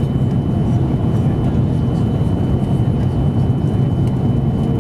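Steady jet engine and airflow noise heard inside the cabin of an Airbus A330-200 airliner: a constant low rumble with a faint thin high tone running through it.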